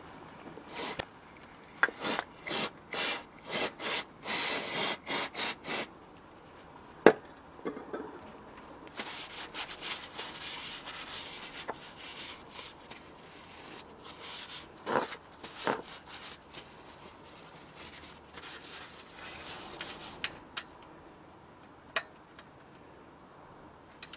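Hand work on the car during an oil change: a quick run of about a dozen short rubbing strokes, a sharp click, then a longer stretch of rough scraping, broken by a few knocks and clicks.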